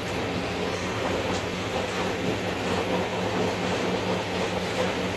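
Indian Railways passenger coach running along the track, a steady rumble and rattle of wheels and coach with a low steady hum, heard from inside the coach's toilet compartment.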